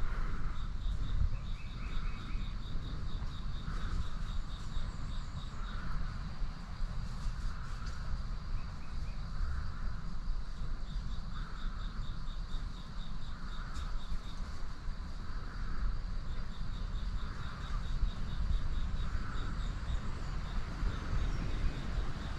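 Open-country ambience: a fast insect trill, a soft call repeating about every two seconds, and a steady low wind rumble.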